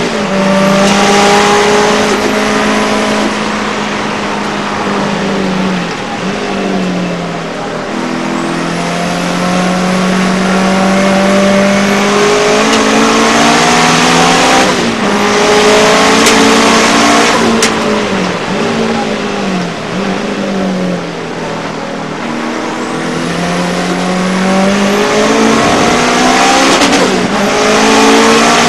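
Race car engine heard from inside the cockpit, at hard throttle with its pitch climbing through the gears. It drops sharply several times as the driver brakes and shifts down for corners, with a run of quick downshifts around twenty seconds in.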